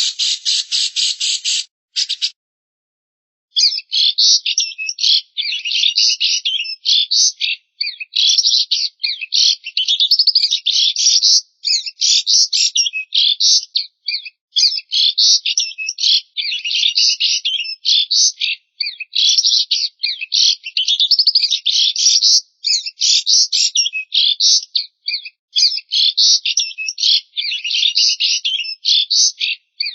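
A fast, dry rattle of rapid clicks that stops about two seconds in, then after a short gap a songbird's continuous, varied, high-pitched chattering song in quick phrases, a recording used as tutor song for training white-rumped shamas.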